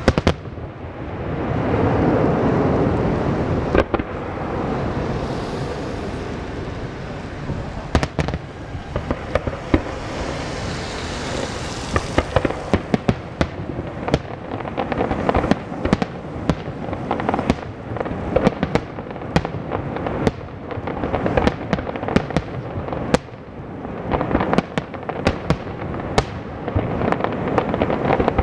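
Professional fireworks display: aerial shells bursting over a dense, rolling rumble, with a few sharp bangs early on. About halfway in, a rapid string of sharp bangs and cracks begins, growing denser toward the end.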